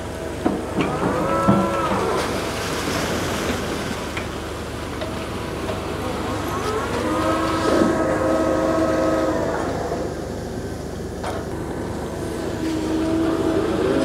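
Diesel engine of a floating grab-dredger crane revving up and easing back down twice, each rise and fall lasting a couple of seconds, the first about a second in and the second around the middle. A steady drone and a low rumble run between the revs.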